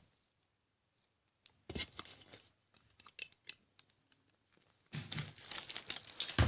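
Wrapping paper being handled, crinkling and tearing: a few scattered rustles from about two seconds in, then a dense run of tearing and crumpling in the last second and a half.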